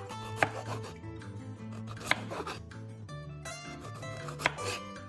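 Chef's knife slicing bell peppers into thin strips on a cutting board, with rasping cuts and a sharp knock on the board three times, over background music.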